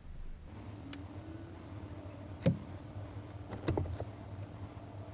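A steady low electric buzz, which the owner takes for the fuel pump or something similar running on the Cummins diesel pickup with the key on and the engine off. A few short knocks and clicks fall about halfway through and again a little later.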